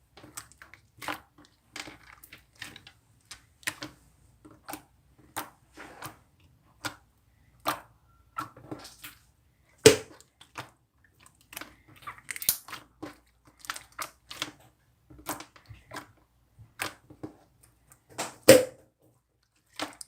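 A close series of short, sharp crunches and clicks, irregular, about one or two a second, with louder ones about ten seconds in and near the end.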